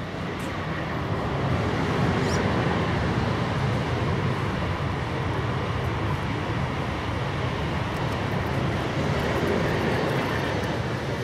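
Steady rushing engine noise of a passing vehicle, swelling over the first second or two and fading near the end.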